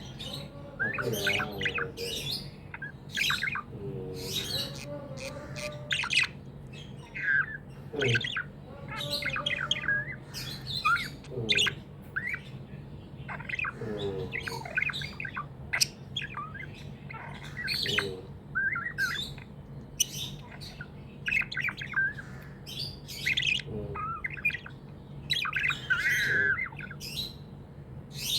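Budgerigars chirping: many short, quick calls in an irregular stream, with a steady low hum underneath.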